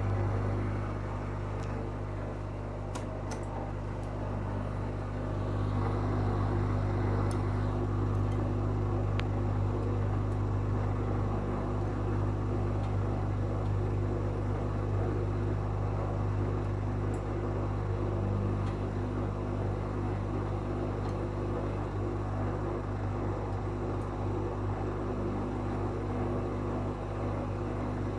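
Whirlpool FL 5065 washing machine running steadily: the motor and drum turning with a constant low hum and a few steady higher tones. It is most likely the 600 rpm spin with the load unbalanced.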